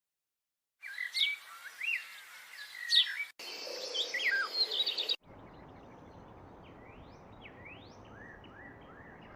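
Bird-song sound effects played one after another: three different recordings of birds chirping and singing, each starting and stopping abruptly. The last has short rising chirps repeated over a steady hiss.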